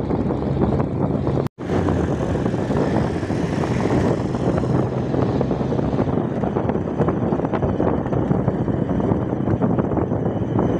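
Mitsubishi L300 minibus driving through town, heard from inside: a steady engine hum under road and wind noise. The sound cuts out for an instant about a second and a half in.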